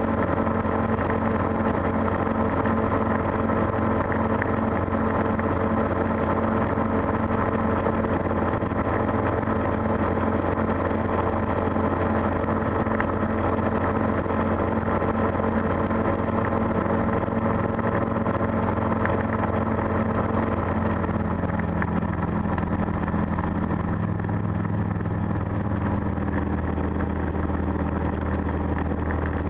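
Calidus gyroplane's engine throttled back to idle during a power-off descent for landing, heard from inside the enclosed cockpit as a steady hum. Its pitch drops slightly about two-thirds of the way through.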